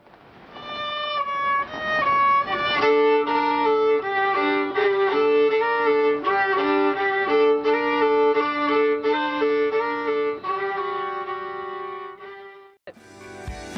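A violin playing, mostly two notes bowed together beneath a moving melody. Near the end it cuts off abruptly into a different, louder music clip.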